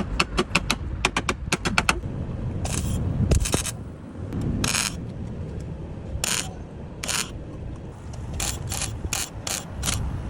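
Ratchet wrench being worked by hand. First comes a quick run of sharp clicks, then a series of short raspy ratcheting strokes.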